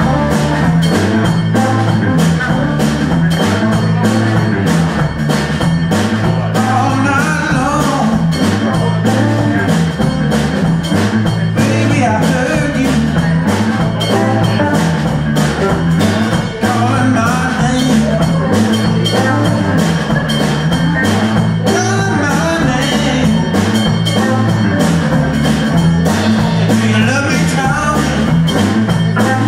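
Live band playing blues-rock: a drum kit keeps a steady beat under a repeating bass line and electric guitar, with a melodic line that bends and wavers every few seconds.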